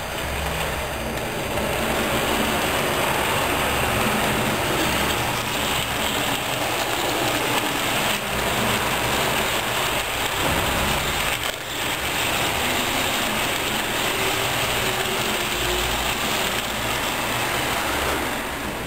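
HO-scale model passenger train, a steam locomotive with its coaches, running past on the layout track: the steady rolling rumble of small wheels on the rails and the locomotive's motor. It swells about two seconds in as the train comes close and drops back near the end as it moves away.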